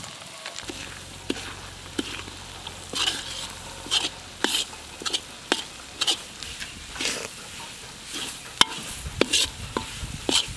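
Metal ladle scraping and stirring wheat flour around a black wok, with repeated irregular scrapes over the steady sizzle of the flour frying in hot oil and ginger-garlic paste. The flour is being roasted in the oil to brown it.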